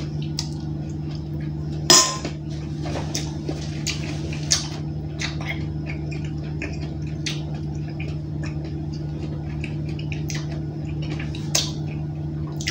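A metal spoon clinking against a stainless steel bowl, sharpest once about two seconds in with a short ring, amid small chewing and mouth noises. A steady low machinery hum runs underneath.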